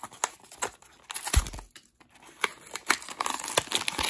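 A small cardboard blind box being opened by hand, its flaps and tab clicking and scraping, with a soft thump about a second and a half in. Then the foil bag inside is pulled out and crinkles, the crinkling growing denser toward the end.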